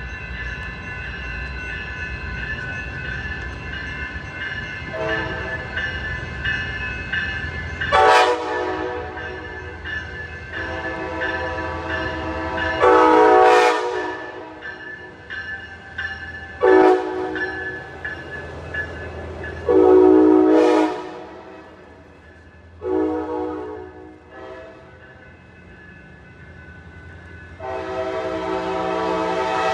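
Train air horn sounding a series of chord blasts: two long, a short and a long, the pattern used for a grade crossing, then a short blast and a final long one near the end. A low rumble and a steady high ringing tone carry on underneath.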